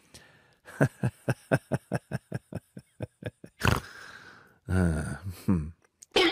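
Kitten lapping milk from a bowl, a quick even run of wet laps at about five a second. Then comes one sharp click and about a second of a low sound.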